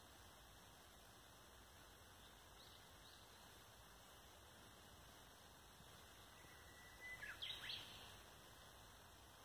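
Near-quiet outdoor air with a faint steady hiss; a songbird gives two faint chirps, then about seven seconds in sings one phrase: a short held whistle followed by a few quick sweeping notes.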